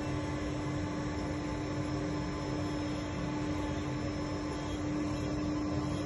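A machine tool running steadily, giving a constant hum with an even mechanical hiss behind it.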